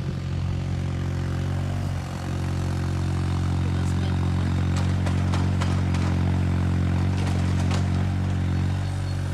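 An engine running steadily, getting a little louder about two seconds in, with scattered light clatter over it.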